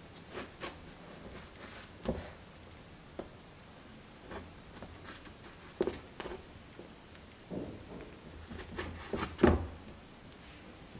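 Pink silicone spatula scraping under and flipping dough buns on a dry, unoiled nonstick electric baking pan: scattered soft knocks and rubs, one after another as each bun is turned, the loudest near the end.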